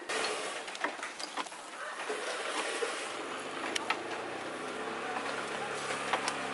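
A steady hiss with a few sharp clicks, and an engine running steadily from about halfway through.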